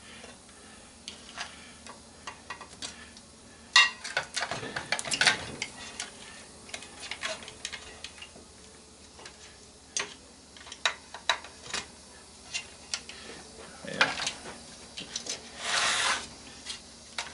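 Hand tools and the plastic and metal parts of a CRT monitor being worked apart: wire cutters snipping among scattered sharp clicks and clatter. There is a loud clack about four seconds in and scraping rattles around five and sixteen seconds.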